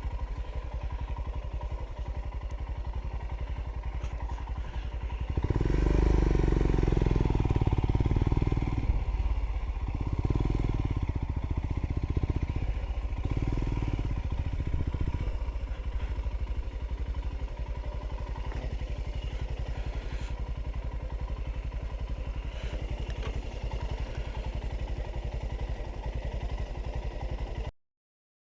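Motorcycle engine running. It gets louder about five seconds in, with several surges in revs, then settles back to a steady run before the sound cuts off abruptly near the end.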